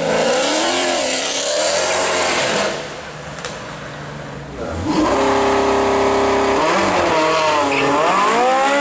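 High-performance car engines in a run of short clips: an engine revving hard with rising and falling pitch, a brief quieter lull, then an engine held at steady high revs before accelerating with repeated rising sweeps as it changes up through the gears.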